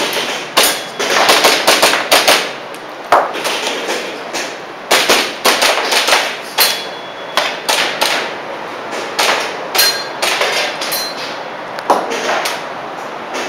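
Airsoft pistol shots fired in an irregular string, some in quick pairs, with BBs smacking the targets; a few of the hits ring briefly.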